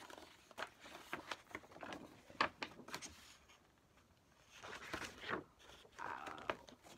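Rustling and crinkling of a large folded paper poster being handled and unfolded, in scattered crackles with two denser bursts in the second half.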